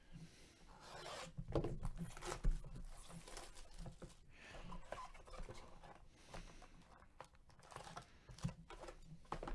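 A sealed trading-card hobby box being unwrapped and opened by gloved hands: quiet, irregular tearing and crinkling of the plastic wrap, with light scrapes and taps of the cardboard box.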